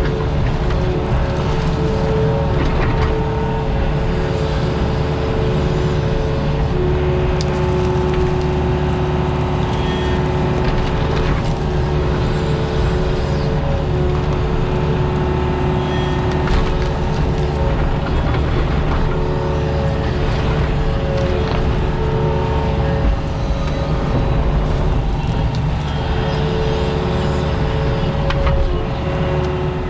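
Diesel engine of a compact excavator or track loader running steadily at high throttle, with a hydraulic whine that comes and goes every few seconds as the controls are worked.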